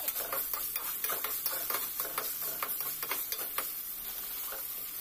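Spiced chicken pieces sizzling in oil in a metal kadai while a metal spoon stirs them, scraping and clicking against the pan several times a second.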